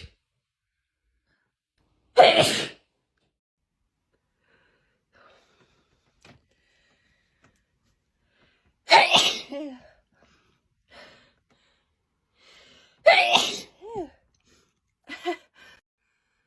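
Three loud sneezes in an allergic sneezing fit: one about two seconds in, one near the middle and one later on, each sudden and then fading. A few fainter short sounds come between and after them.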